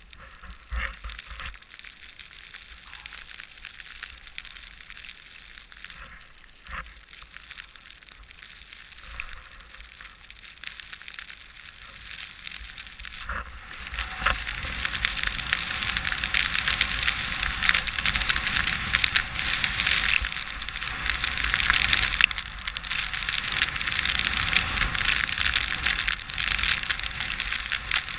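Skis sliding and hissing over fresh snow, with wind buffeting a helmet-mounted microphone. The hiss and wind grow much louder about halfway through and stay loud.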